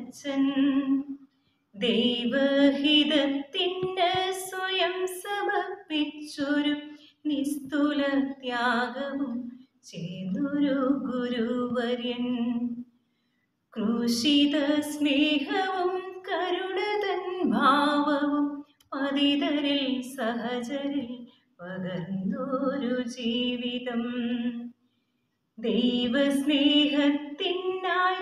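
A woman's unaccompanied voice in a sung, melodic recitation of a poem, in phrases of a few seconds with short silent pauses between lines.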